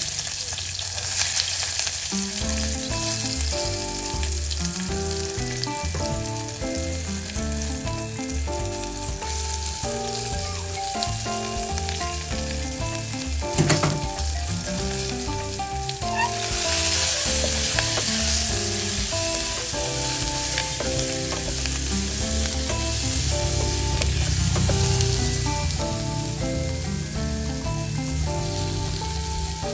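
Sliced eggplant frying in hot oil in a stainless steel saucepan: a steady sizzle. About 14 seconds in there is a sudden louder burst, and the sizzle grows stronger from about 16 seconds, as sliced red onion joins the pan; near the end it is stirred with a wooden spatula. Background music plays underneath.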